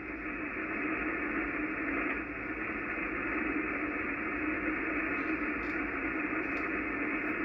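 HF transceiver receiving steady static hiss on the 80-metre band between transmissions, with no station talking. The hiss is cut off above the voice range by the receiver's sideband filter.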